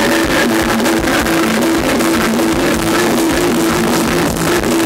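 Live band playing amplified Thai ramwong dance music: an electric guitar over a drum kit, with a steady beat and a short phrase of notes repeating.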